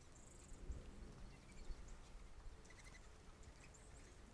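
Faint, brief high bird chirps over a low steady rumble of rain on the trail camera's microphone, with a couple of soft thumps about a second in.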